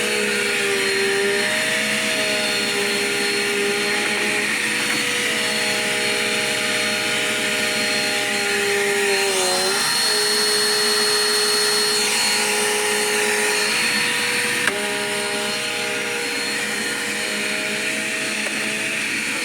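Dirt Devil Quick Power vacuum cleaner running steadily on a bare floor, sucking up pieces of paper; its motor whine shifts in pitch a few times, dipping about nine seconds in, with a brief click near fifteen seconds.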